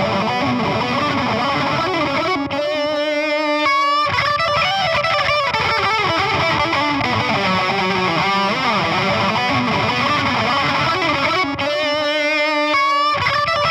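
Distorted electric lead guitar through the Brainworx Diezel VH4 amp-simulator plugin, playing a solo line. It includes two long held notes with wide vibrato, one a few seconds in and one near the end.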